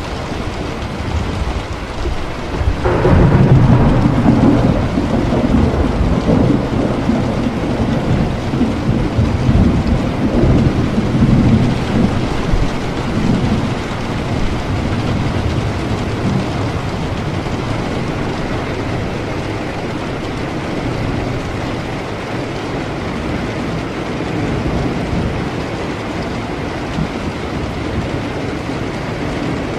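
Steady heavy rain with a thunderclap about three seconds in that rumbles and rolls for some ten seconds before fading back into the rain.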